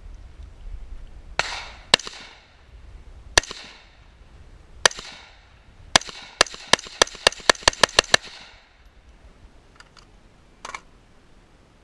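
Gunshots. First single shots about a second and a half apart, then a fast string of about ten shots at roughly five a second, each with a short ringing tail. A fainter shot comes near the end.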